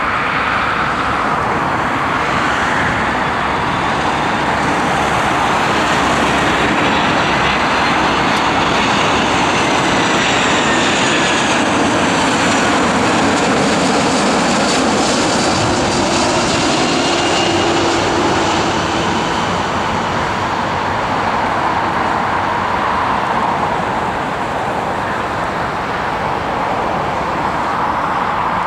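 Airbus A340-300's four CFM56 turbofan engines at approach power as the airliner flies low past on final approach. It is a steady jet noise with a high whine that slides down in pitch as it goes by, easing off slightly near the end as it settles toward the runway.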